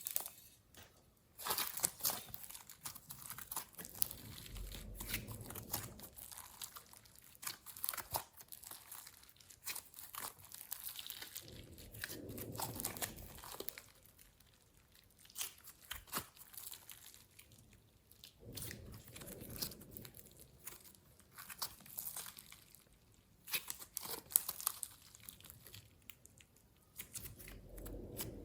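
Slime with clay mixed in being kneaded and pressed by hand, giving many small sticky crackles and pops, with a deeper squishing press every several seconds.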